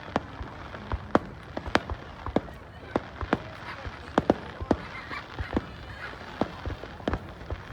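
Fireworks going off: an irregular run of sharp bangs and pops, one to three a second, some louder than others.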